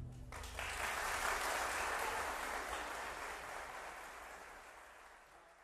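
Applause from a group of people, starting about a third of a second in and fading away over about four seconds.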